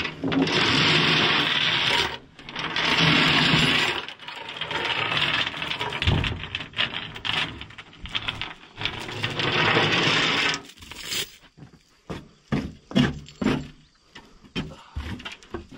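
Shovel scraping dirt off a trailer deck: about four long scrapes of a second or two each, then a run of short knocks and taps near the end.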